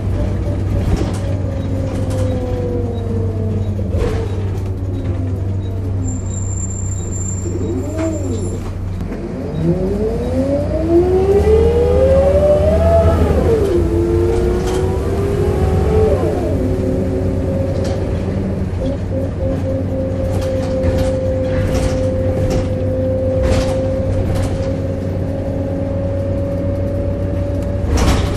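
Volvo B7RLE single-deck bus heard from inside, its diesel engine rumbling under a groaning whine that falls as the bus slows, rises sharply as it pulls away about ten seconds in, then holds near steady at cruising speed. Body panels rattle and click now and then.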